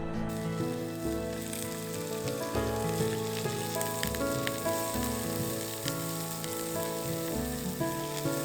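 Food sizzling and crackling in hot oil in a pan, a dense steady hiss with scattered pops that cuts off suddenly at the end, over soft background music.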